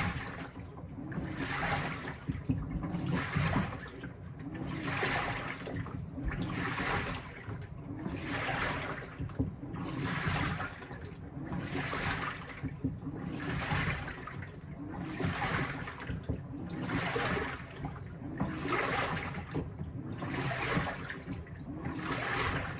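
Panasonic top-loading washing machine washing: water and laundry sloshing in the tub, swishing in a regular rhythm about every 1.7 seconds over a steady low churn as the agitator turns back and forth.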